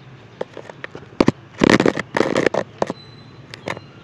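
Scattered clicks and knocks, with a loud burst of crackling and rustling from about one and a half to two and a half seconds in.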